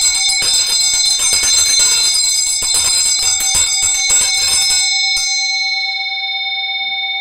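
Tibetan mantra bell (ghanta) with a vajra handle swung by hand, its clapper striking rapidly for about five seconds. The strikes then stop and the bell rings on with a long, sustained resonance, the sign by which the seller judges it a good bell.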